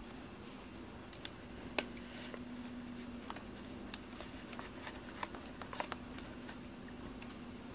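Soft rustles and small scattered clicks of a hand petting a cat's fur close to the microphone, over a steady low hum.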